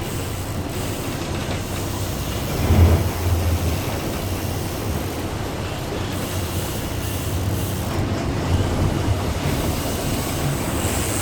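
A boat's engine running steadily with a low hum, under wind and water noise; it swells briefly about three seconds in.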